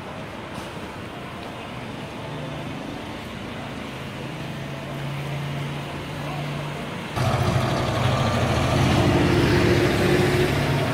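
Road traffic passing, with engine hum building. About seven seconds in it turns suddenly much louder as a heavy vehicle's engine runs close by.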